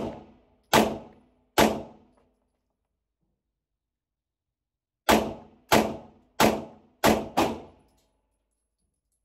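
Canik TTI Combat 9mm pistol with a compensator firing: three shots about a second apart, a pause of about three seconds, then five quicker shots, the last two close together. Each shot leaves a short echo off the range walls.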